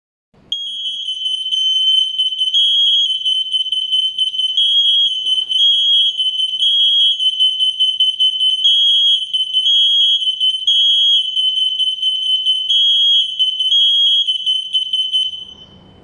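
CPVAN SM11R interlinked smoke alarms sounding after being triggered: a loud, shrill, piercing tone with brighter beeps in repeating groups of three, the alarms screaming together. It stops near the end.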